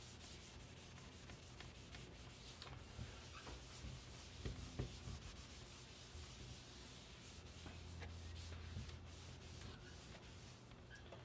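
Faint steady rubbing of a microfiber pad, dry side, wiping over the aluminium unibody case of a MacBook Pro, with a couple of light knocks about halfway through.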